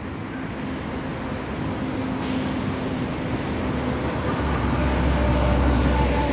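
Boeing 747-400F freighter on final approach, its four jet engines' noise steadily growing louder as it nears. The high hiss of the engines picks up about two seconds in, and a deep low rumble joins about four seconds in.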